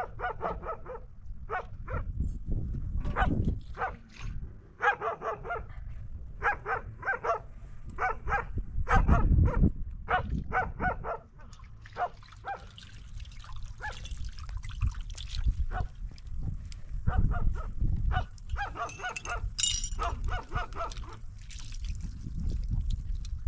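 A dog barking repeatedly in short clusters of sharp barks, over a steady low rumble.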